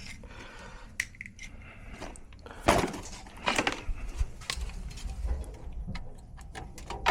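Hands working at a thermostat's wiring: scattered clicks, knocks and rustling of plastic and wire being handled, with one sharper knock about two and a half seconds in.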